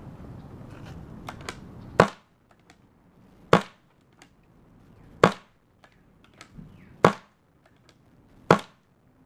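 Custom pump-action paintball gun, a modified Kingman Hammer with a Delrin slide, firing five single shots about one and a half seconds apart. Fainter clacks between the shots come from the slide being pumped to load the next ball.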